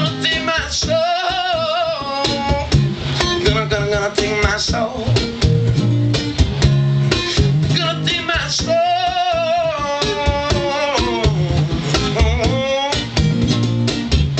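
Live soul-rock music with guitar and a steady bass line, and a singer holding two long, wavering wordless vocal phrases, about a second in and again about eight seconds in.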